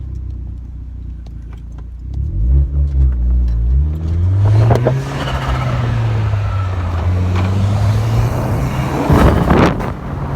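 Hyundai Genesis Coupe 2.0T's turbocharged four-cylinder heard from inside the cabin, idling low and then accelerating with rising revs. An HKS blow-off valve vents loudly on lift-off about four and a half seconds in and again near the end.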